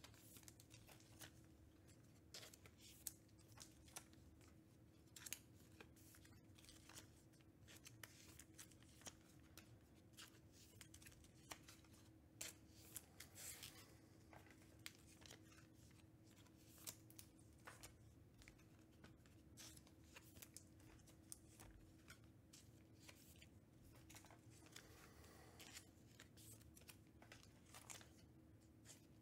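Faint clicks and rustles of trading cards being handled and sorted by hand, over a steady low hum.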